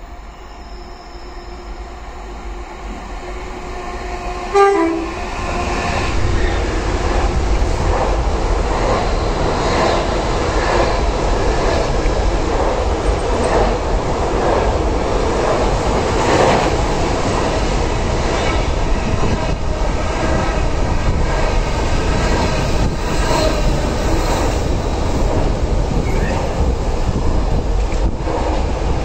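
A Class 66 diesel freight locomotive, with its two-stroke V12, growing louder as it approaches and passes beneath, with a brief horn note about four and a half seconds in. Then comes the steady rumble and clatter of a long intermodal container train's wagons rolling past.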